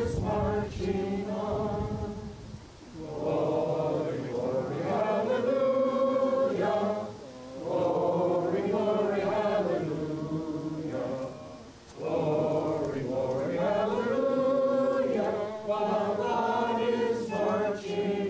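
A crowd of people singing a song together, in held phrases of a few seconds with brief pauses for breath between them.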